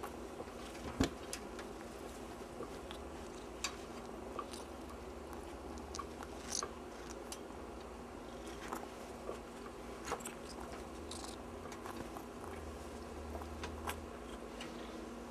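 Scattered light clicks and taps from a kitten at play, over a steady low hum, with one sharper knock about a second in.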